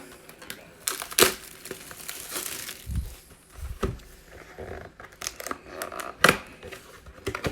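Plastic wrapping being torn and crinkled by hand, in irregular crackles with a few sharper snaps: the shrink wrap coming off a sealed card hobby box as it is opened.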